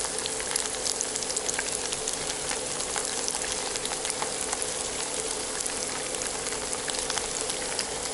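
Flour-coated chicken breast slices deep-frying in hot oil in a pan: a steady sizzle full of small crackling pops, with a faint steady hum underneath.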